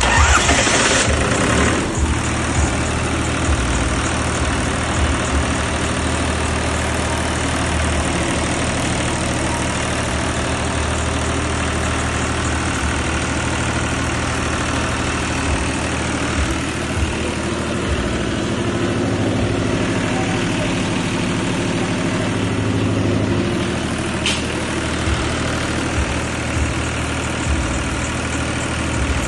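An engine running steadily at idle, starting loudly just at the beginning, with a sharp click about 24 seconds in.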